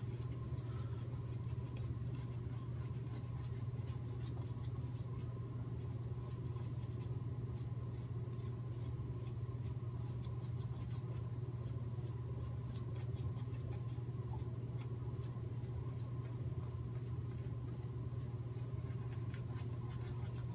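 Semogue shaving brush working Williams soap lather into the beard, a soft steady scratchy rustle, over a steady low hum.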